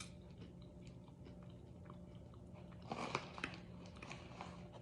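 Someone chewing crunchy snack chips, with faint crackling crunches throughout and a louder crunch about three seconds in.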